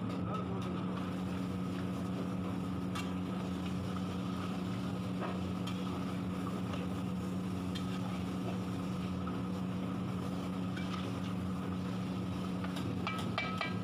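A steady mechanical hum that holds one low pitch throughout, with a few light clicks and scrapes of a metal spatula stirring chicken curry in a large kadhai, the clearest near the end.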